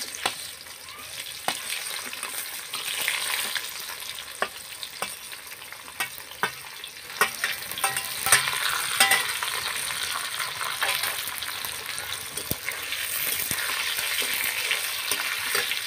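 Potato and vegetable-stem pieces sizzling in hot oil in a metal karahi, with a steady hiss that swells as they are turned. A metal spatula scrapes and clicks against the pan as they are stirred.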